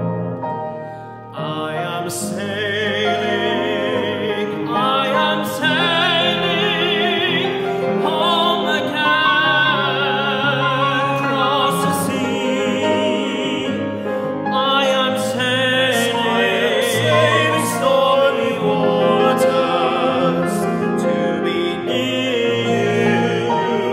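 Male voices from a tenor and baritone duet singing in a classical, operatic style with strong vibrato, over piano accompaniment; the singing comes in about a second in, after a softer moment.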